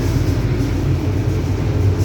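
Mercedes-Benz OF-1721 bus with its four-cylinder diesel running steadily under way: a deep, even drone with the differential growling.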